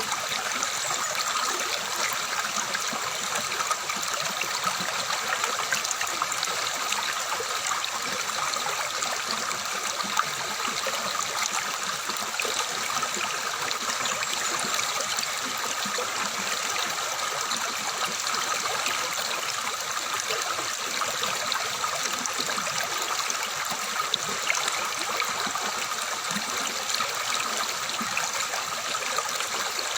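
Water flowing and splashing steadily over rocks, an even babbling of a stream with small droplet splashes.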